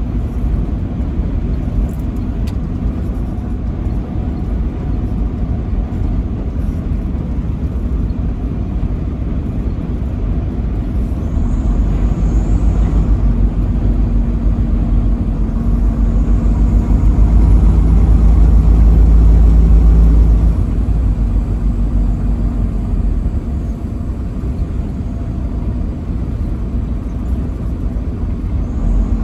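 Truck engine and road noise while driving: a steady low rumble that swells louder about twelve seconds in and falls back about twenty seconds in.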